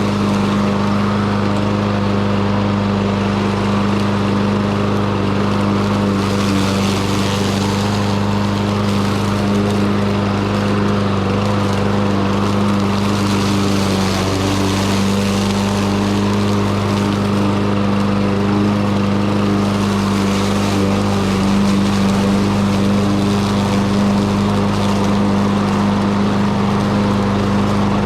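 Troy-Bilt TB110 push lawn mower's small engine running steadily at a constant speed, a loud even hum without a break.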